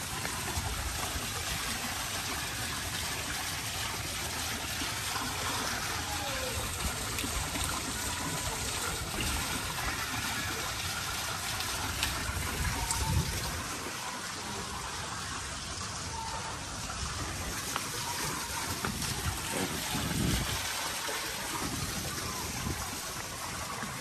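Small artificial waterfall pouring from a spout into an ornamental pond, a steady splashing trickle, with a couple of brief low rumbles partway through.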